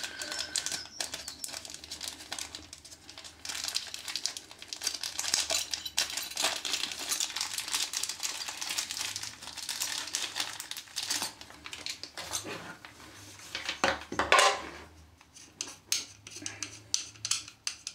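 A bag crinkling as it is opened and searched, with light metallic clinks and rattles of small probe-tip accessories, and a few sharper clatters near the end as a hook tip is handled.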